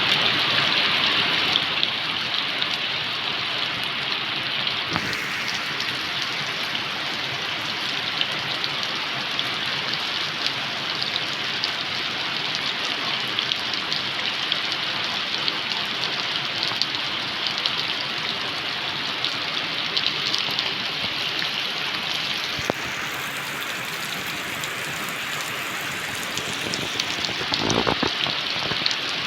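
Steady rain falling in a forest, with close drops ticking on leaves, briefly a little louder near the end.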